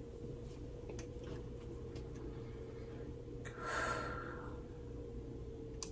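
Faint room tone with a steady electrical hum, and one audible breath from a person about three and a half seconds in. A few faint clicks.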